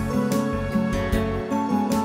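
Background music: a gentle instrumental piece with plucked notes struck every half second or so.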